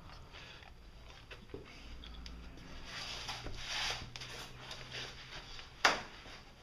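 A 6 mm Allen key turning an oil drain plug back into the oil pan of a 2015 Polaris RZR 900 S: soft metal scraping and rubbing with small clicks, and one sharp click about six seconds in.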